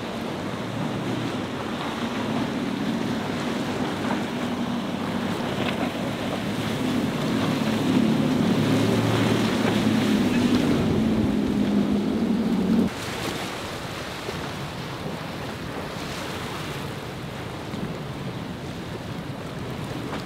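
Sea Vee center-console boat's triple Mercury 300 outboards running at speed over rough water: a steady engine drone that grows louder, then cuts off abruptly about two-thirds of the way through. Wind noise on the microphone and breaking surf run throughout.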